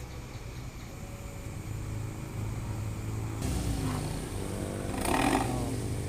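Daihatsu Luxio engine running through a SUOS "ngorok" JS Series aftermarket exhaust, a steady low drone. It revs up with a rising pitch about three and a half seconds in, and gives a louder, sharper rev burst about five seconds in.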